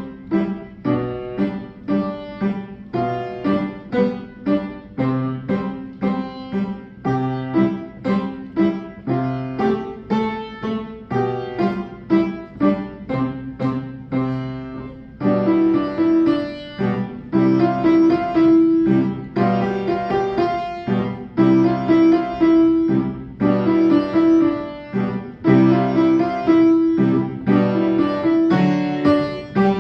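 Piano playing a simple beginner piece, with single notes struck in a steady, even beat. About halfway through, fuller held notes in the middle register come in.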